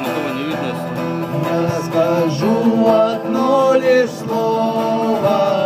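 Acoustic guitar strummed as song accompaniment, with a voice holding sung notes over it.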